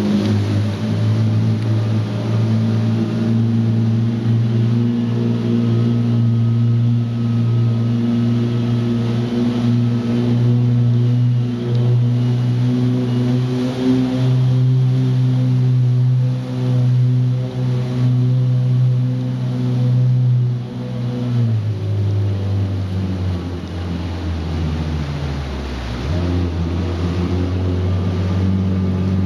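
Kawasaki jet ski engine running at steady high revs, then easing off about two-thirds of the way in, dropping to low revs and picking up again near the end.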